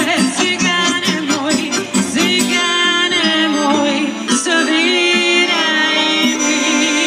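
A live amplified Balkan folk band plays: a woman sings an ornamented, wavering melody into a microphone over accordion, acoustic guitar, keyboard and hand drum.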